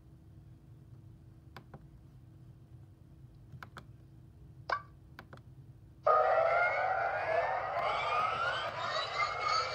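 Cartoon sound effects. First come a few faint clicks and a short whistle that falls in pitch, then, about six seconds in, a loud effect starts in which several tones rise slowly together.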